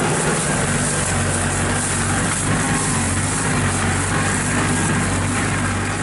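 New Holland tractor's diesel engine running at a steady note as it drives past pulling a trailer.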